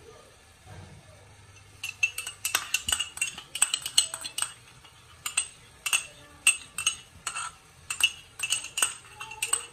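A metal spoon clinking and scraping against the inside of a ceramic mug, scraping out the last of the ketchup: many short, ringing clinks at an uneven pace, starting about two seconds in.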